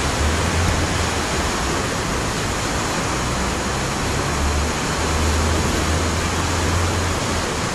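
A creek in flood, its fast brown water rushing and churning against a concrete channel wall, making a loud, steady hiss. A low rumble underneath swells twice and fades.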